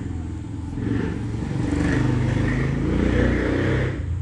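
A motor vehicle's engine rumbling, louder through the middle seconds and dropping away about four seconds in.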